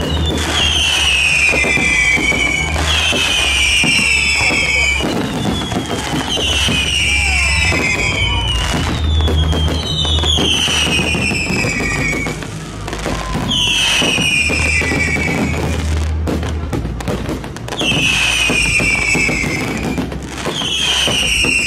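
Aerial fireworks bursting and crackling, with music playing underneath. A falling whistle repeats every two or three seconds.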